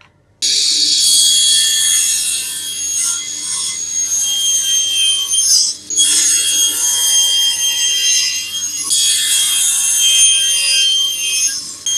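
Table saw running and cutting through a solid hardwood board pushed on a crosscut sled: a steady high whine under the rasp of the blade in the wood, trimming the board square. The sound starts suddenly about half a second in and drops out briefly about halfway through.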